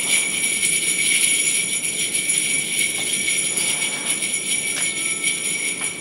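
Small jingle bells on a hand-held red strap, shaken in a continuous shimmering jingle.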